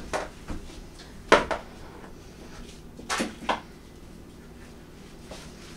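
Kitchen clatter of a drawer and utensils being handled: a few sharp knocks, the loudest about a second in, then two more around three seconds in.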